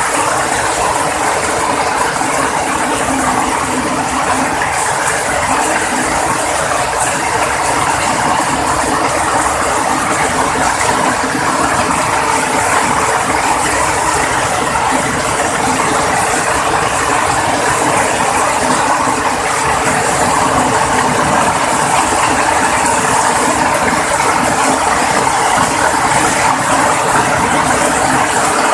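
Very heavy rain pouring down in a steady, dense patter.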